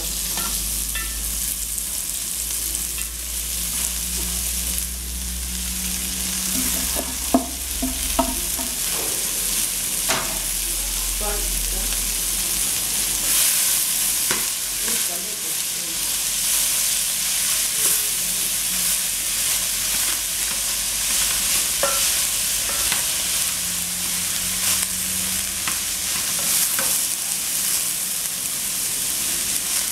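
Shredded cabbage sizzling in a hot aluminium pot as a wooden spoon stirs and scrapes through it, with two brief knocks about seven and eight seconds in.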